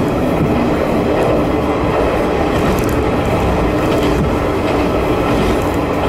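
Jōsō Line diesel railcar running steadily, heard on board: a continuous engine and wheel-on-rail drone with a steady low hum.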